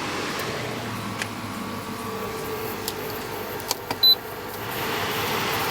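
Portable air conditioner being switched on: a steady hum, a few button clicks and a short high beep about four seconds in, then its fan rushing louder near the end.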